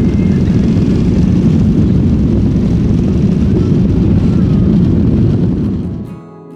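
Airliner's jet engines heard from inside the passenger cabin, a loud steady rumble that fades out about six seconds in. Acoustic guitar music comes in near the end.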